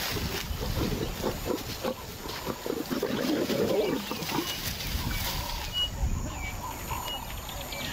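Lions growling and snarling, a lioness snarling at a male lion; the growls are loudest about three to four seconds in.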